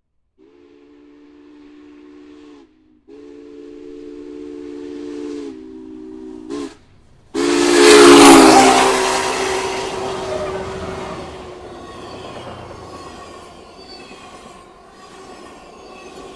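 Union Pacific 844 steam locomotive sounding its chime whistle in the grade-crossing pattern: long, long, short, long. The last blast sags in pitch as the engine rushes past loudly with a hiss of steam. Then its passenger cars roll by with a steady rumble and regular wheel clatter.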